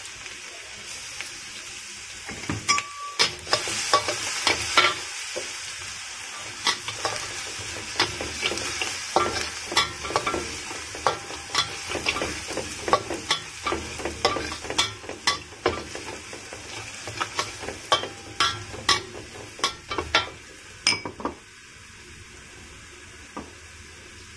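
Minced garlic sizzling in hot oil in a steel wok, with a spatula scraping and tapping against the wok many times as it is stirred. The stirring stops near the end, leaving a quieter sizzle.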